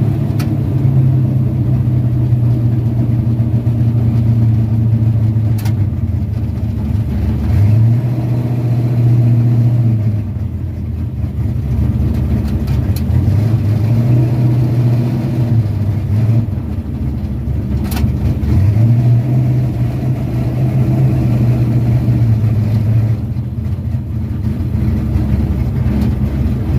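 High-compression car engine running with a steady low drone that drops off and comes back up several times.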